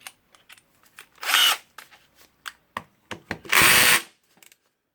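A power drill/driver runs in two short bursts, the second a little longer, on the screws of the top cover. Light clicks of tool handling come between the bursts. The screws are held with Loctite threadlocker and are not coming out easily.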